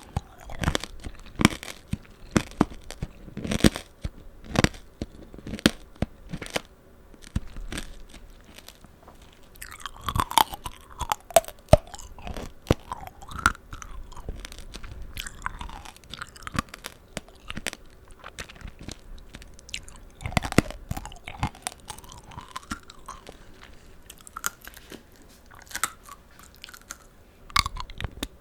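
Close-miked chewing of tanghulu, candied fruit in a hard sugar shell: the glaze cracks in many sharp, irregular crunches between the teeth. Between the crunches there are wet, juicy mouth sounds from the fruit.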